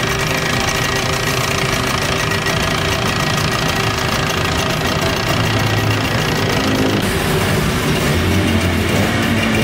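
Hidea 15HP Enduro two-stroke outboard motor running steadily in a water test tank, getting a little louder from about five seconds in.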